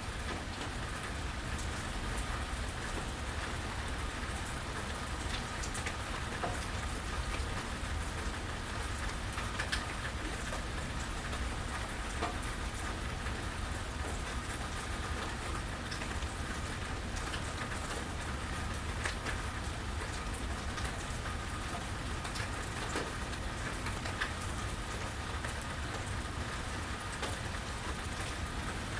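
Steady rainfall, with many individual drops ticking sharply close by and a constant low rumble beneath the hiss of the rain.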